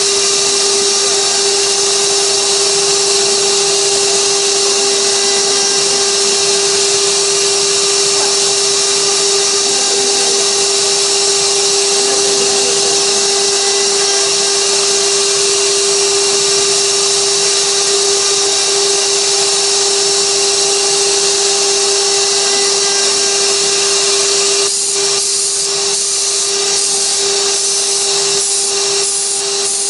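6060 CNC router's spindle running with a steady high whine while its bit carves a 3D relief into wood, with a hiss of cutting noise over it. About five seconds before the end the sound starts pulsing in short, even surges as the cut changes.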